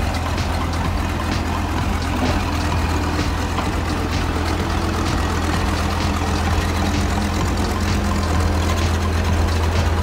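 Diesel engine of a Sakai single-drum road roller running steadily at a low, even hum.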